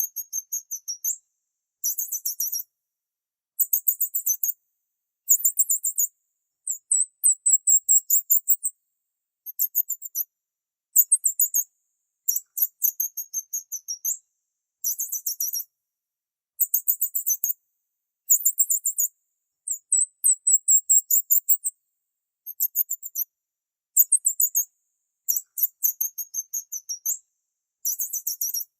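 Small bird chirping in short, rapid, very high-pitched bursts, about one burst a second, repeating with brief silences between.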